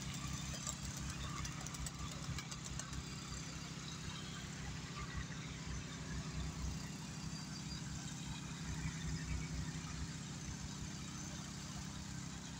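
Steady low hum of an idling engine, with faint outdoor background noise.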